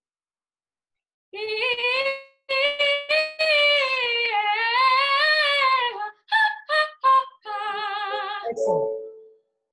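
A female soprano voice sings a high vocal warm-up exercise over a video call, with wide vibrato on the held notes. After about a second of silence come held, wavering notes, then a quick run of short separate notes, then another long held note near the end.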